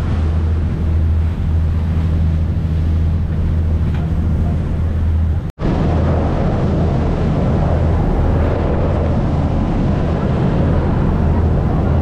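Speedboat engine running steadily at speed, a deep even hum under the rush of wind on the microphone, with a brief abrupt gap about five and a half seconds in.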